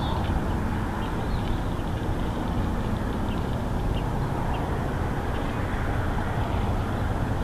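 Steady low outdoor rumble, with a few faint, short high chirps of small birds scattered through it.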